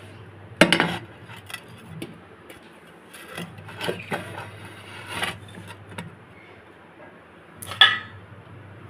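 Stainless-steel kitchen utensils clattering as they are handled: a loud knock about half a second in, a run of lighter clinks, taps and scrapes, then a ringing metal clank near the end.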